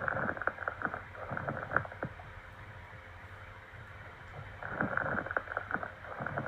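Lung crackles (rales) heard through a stethoscope: two bursts of crackling, bubbling clicks, one in the first two seconds and one near the end. Crackles like these are a sign of fluid in the lungs, from hemorrhage, pus, pneumonia or edema.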